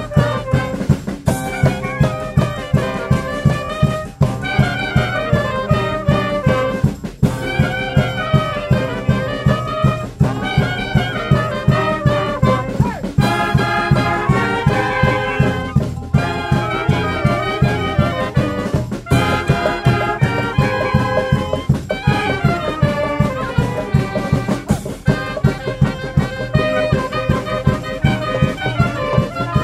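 Fanfare brass band playing a lively tune, trumpets and trombones carrying the melody over a steady percussion beat.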